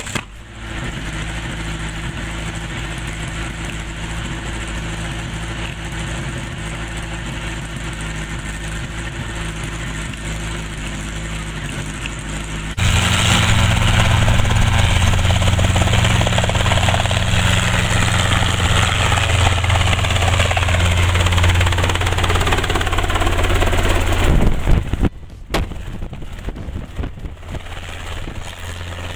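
Robinson R22 helicopter running, its four-cylinder piston engine and turning rotor making a steady drone. About halfway through the sound jumps abruptly louder. Near the end it drops back, with wind on the microphone, as the helicopter lifts into a hover.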